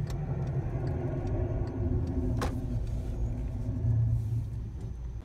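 2009 VW Golf Plus being driven, heard from inside the car: a steady low road and engine rumble with a wavering metallic noise from the right-side brake. The brake pads are worn down to the metal.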